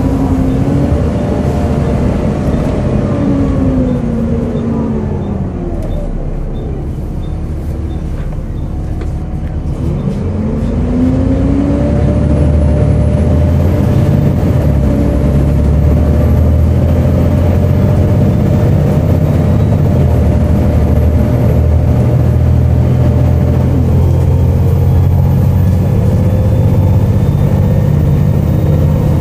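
Volvo B7TL double-decker bus heard on board, its engine and transmission whine falling in pitch as it slows to a near stop. It runs low for a few seconds, then the whine climbs again as it pulls away and settles into a steady cruise.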